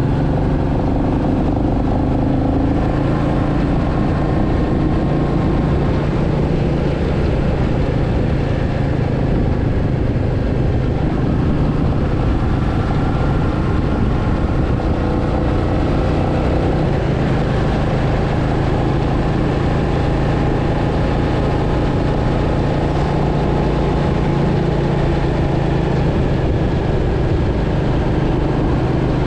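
Royal Enfield Meteor 350's single-cylinder engine and exhaust, heard from on the bike while it cruises at a steady pace. The note rises and falls a little in pitch as the throttle changes.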